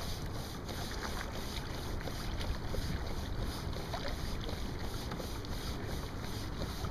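Steady wind noise on the microphone, with water lapping against a kayak hull as it moves across the bay.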